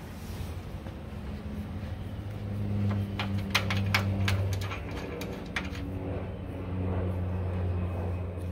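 Scattered sharp metallic clinks of bolt and tool hardware at a 4Runner's lower control arm mount, clustered in the middle, over a low motor hum that swells twice.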